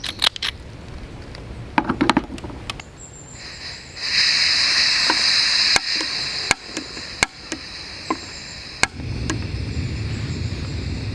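A one-handed pepper grinder crunching in short bursts, then a SOTO ST-301 gas camp stove being lit: gas hissing from about four seconds in, four sharp igniter clicks, and the burner catching near the end with a low steady roar.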